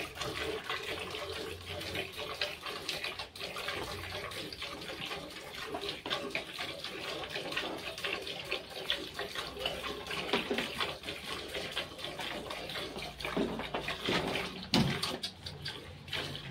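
Milk squirting from a Holstein-Friesian cow's teats into a steel bucket during hand milking: a steady run of splashing squirts into the pail.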